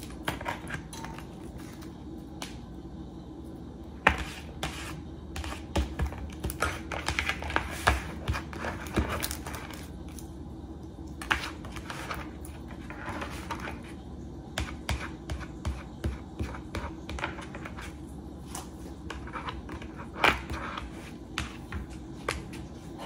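Chef's knife slicing an onion into long strips on a paper plate: irregular runs of light taps and cuts, over a low steady hum.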